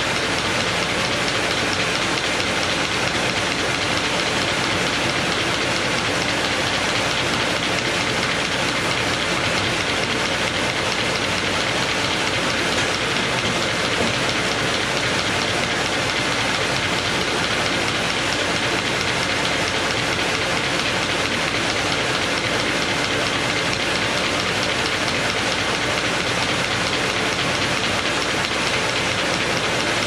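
MBO T49 buckle paper folder running steadily at high speed, feeding sheets through its rollers and belts and letter-folding them: a continuous, even mechanical rattle with no pauses.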